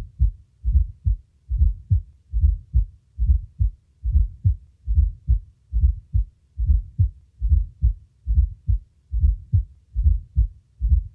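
Heart sounds through a stethoscope with a fourth heart sound (S4, atrial gallop): a low thud just before each first heart sound, then the second sound, repeating steadily at a little over one beat a second. The S4 is the sign of a stiff, less compliant ventricle or increased diastolic filling.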